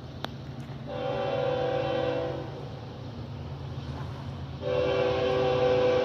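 Distant approaching diesel locomotive sounding its multi-note air horn: one blast about a second in lasting about a second and a half, then a second, louder blast starting near the end and still held. A steady low engine rumble runs underneath.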